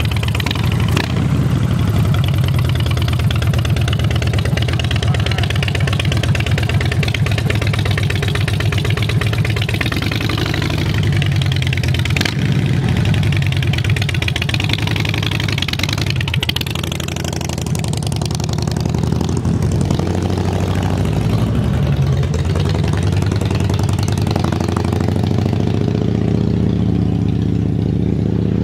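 2007 Harley-Davidson Dyna Street Bob's V-twin through Vance & Hines Short Shots exhaust, a loud steady rumble at low speed and at idle. Its pitch rises and falls several times as the throttle is opened and closed.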